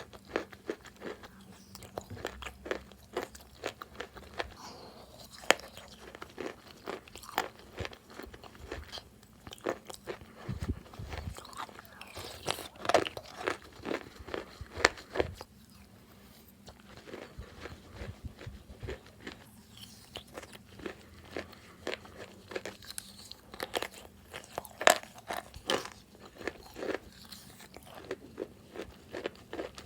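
Close-miked biting and chewing of wet Kiti chalk: irregular sharp crunches, several a second, with a brief lull about halfway through.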